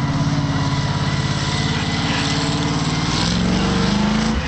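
Monster truck engine running as the truck drives past, its pitch rising as it revs up from about three seconds in, then dropping off suddenly just before the end.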